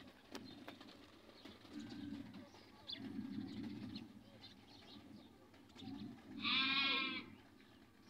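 Grey francolins (teetar) in a pen making soft low calls, with one loud call of under a second about six and a half seconds in that falls in pitch at its end.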